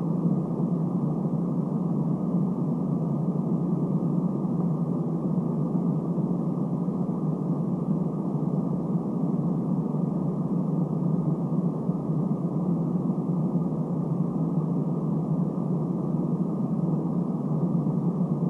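Steady low droning background noise with no distinct events in it, typical of a poor-quality recording.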